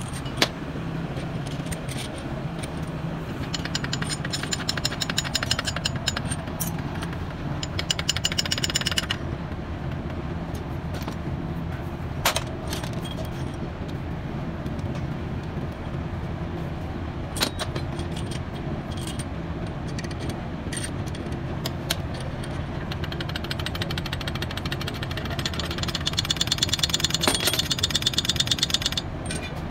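Socket ratchet clicking in quick runs while the crankshaft main bearing cap bolts of a Hino truck engine are tightened, with a few sharp metal clinks between the runs. A steady low engine hum runs underneath.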